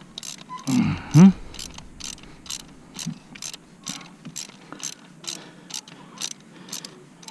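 Socket ratchet clicking steadily, about three clicks a second, as it is worked back and forth to unscrew a loosened glow plug from a VW Touareg 2.5 TDI five-cylinder diesel. About a second in, a short louder voice-like call is heard over it.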